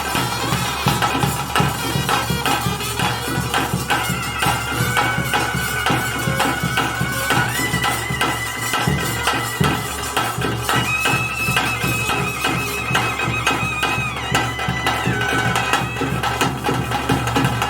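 Bhuta kola ritual music: a reed pipe plays long held notes that step up and down in pitch over fast, continuous drumming.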